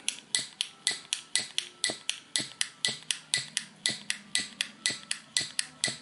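Savinelli piezo pipe lighter being fired over and over: its piezo igniter snaps with a sharp click at a very even pace, about four clicks a second, lighting the flame each time.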